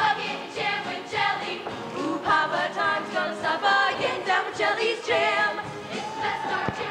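Show choir singing a choreographed number, female lead voices at microphones carrying the tune over the full choir.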